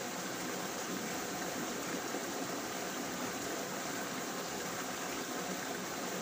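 Steady rushing of water in a small rocky stream: an even, unbroken noise with no distinct splashes or other events.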